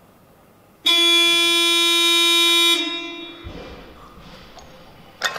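Weightlifting competition clock's electronic horn sounding one steady tone for about two seconds, about a second in: the signal that 30 seconds remain for the lifter's attempt.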